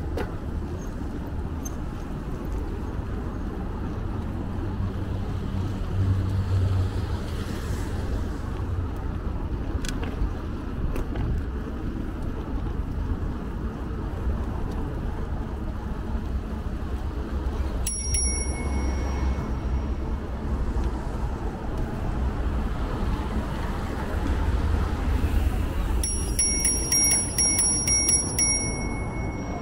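A bicycle bell rings once about two-thirds of the way in, then rings again with several rapid strikes near the end. Beneath it runs a steady low rumble of road and traffic noise from the ride.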